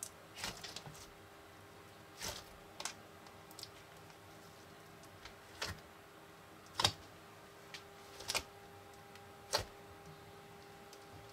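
Hands working a large mass of foam-bead slime, giving scattered sharp clicks and pops every second or so at irregular intervals.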